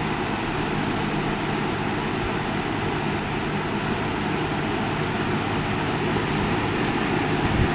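Lasko 3733 box fan running steadily on its medium speed: an even rush of air with a low motor hum underneath.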